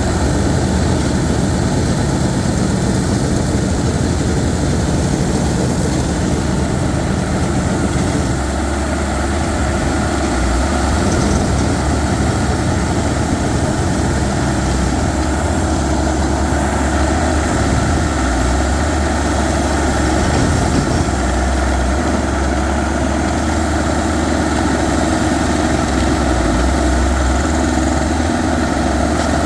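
Rock core-drilling machine running steadily while it bores into hard rock: a continuous engine-like drone that holds the same level throughout.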